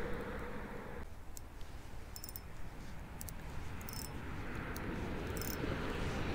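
A passing car's hum from a road bridge stops about a second in, leaving a low steady outdoor rumble with a few short, faint high clicks.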